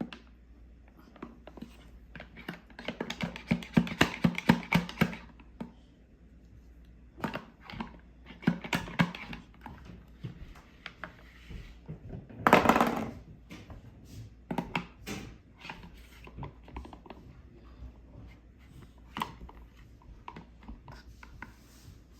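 Plastic Play-doh toy pieces being handled and knocked together: scattered clicks and clatters in a few rapid bursts, with one short louder rush about twelve seconds in.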